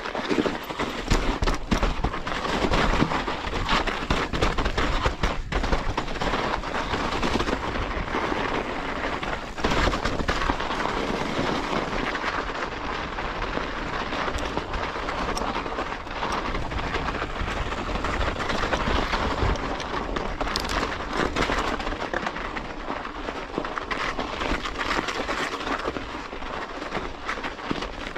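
Mountain bike riding over a snow-covered trail: continuous crunching and crackling of the tyres through snow, mixed with rattling from the bike.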